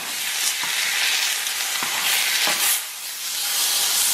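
Beef steak sizzling in a hot frying pan as it is turned over with tongs. The sizzle dips briefly about three seconds in, then picks up again.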